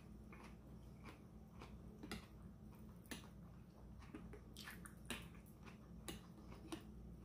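Faint chewing and wet mouth sounds of someone eating shrimp ceviche, with a handful of short sharp clicks from a metal spoon scooping in the cup, over a steady low hum.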